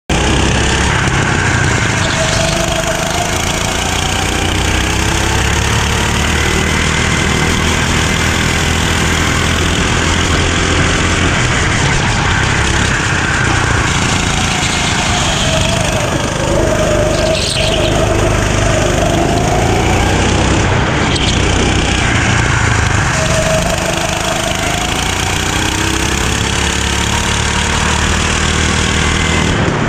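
Go-kart engine running hard, heard onboard, its pitch repeatedly falling and rising again as the kart slows and speeds up.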